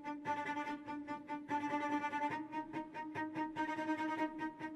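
Background music: sustained notes over a steady rhythmic pulse.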